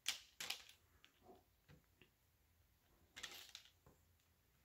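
Faint clicks and ticks of small plastic Lego pieces being handled and pressed together: two sharp clicks right at the start, a few scattered ones, and a short cluster about three seconds in.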